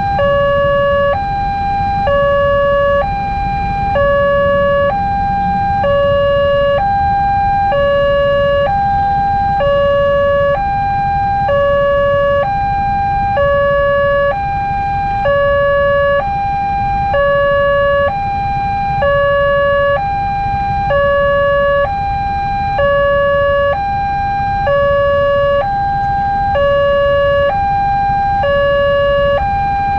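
Railway level crossing alarm sounding, a steady electronic two-tone warning that alternates a higher and a lower note, each held about a second, signalling that a train is coming. A low traffic rumble runs underneath.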